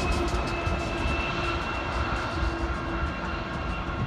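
Freight train moving away: the steady rumble of a rear diesel locomotive and its steel wheels on the rails, with a few thin, high whining tones and faint clicks over it.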